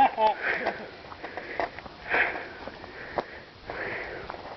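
A person breathing audibly close to the microphone, three breaths a second or two apart.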